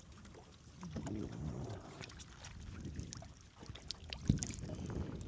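Water sloshing with low rumbling noise, and one sharp knock about four seconds in.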